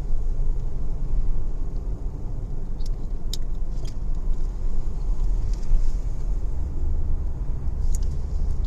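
Deep, steady rumble heard from inside a car, with a few faint clicks.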